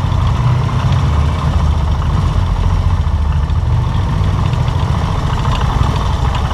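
Motorcycle engine running steadily while riding at a slow, even pace, heard from on board.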